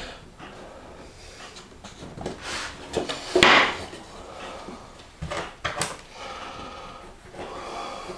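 Wooden boards being handled and set down on a wooden workbench: a handful of short knocks and rubs of wood on wood, the loudest about three and a half seconds in.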